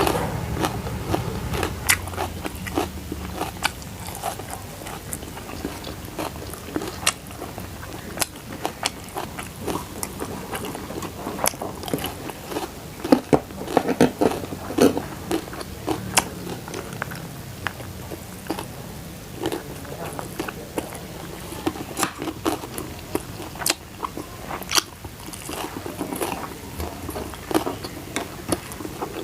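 A person biting and chewing crunchy food close to the microphone, with a stream of sharp crunches and crackles, loudest around the middle.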